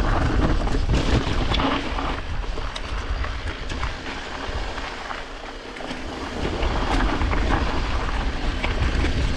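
Mountain bike rolling over rough trail ground, with tyre noise and scattered clicks and rattles from the bike, under a heavy low rumble of wind on the microphone. The sound eases off for a moment around the middle.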